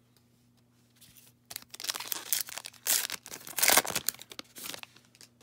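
Wrapper of a 2020 Topps Heritage baseball card pack being torn open and crinkled by hand. It starts about a second and a half in, as a dense run of crackling rustle that peaks near the middle and dies away shortly before the end.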